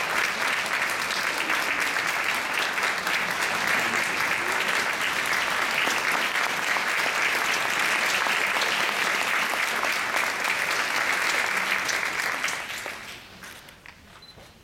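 Audience applauding, a dense steady clapping that dies away quickly about a second and a half before the end.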